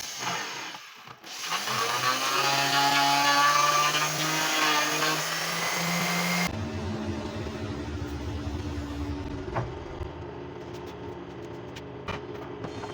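Power tool running on wood with a loud, steady whine for the first half, which cuts off suddenly. A quieter machine hum follows, with a few sharp clicks.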